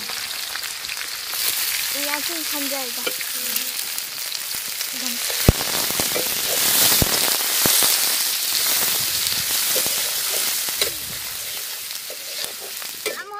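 Sliced onions sizzling in hot oil in an aluminium kadai as they are stirred with a spatula. The sizzle swells about a second in, as the onions hit the oil, with a few sharp knocks of the spatula on the pan around the middle.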